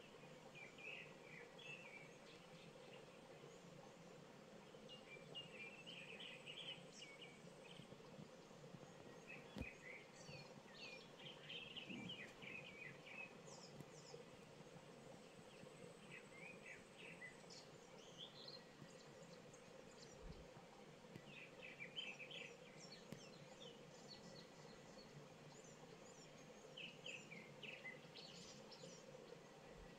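Faint birds chirping at dusk, in short bouts of quick notes that come every few seconds, over a steady background noise.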